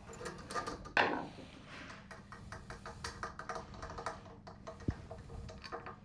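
Irregular light clicks and taps of metal hardware against wood as a threaded insert is turned down into the end of a wooden pole, with one louder knock about a second in.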